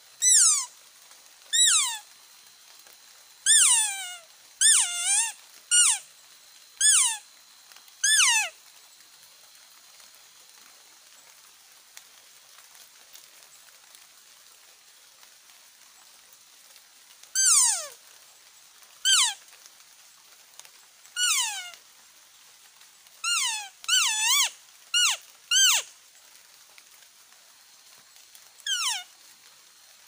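A traditional mouth-blown deer call, blown to lure deer. It gives short squealing calls that slide down in pitch, one or two every second or so, in two runs separated by a pause of about nine seconds.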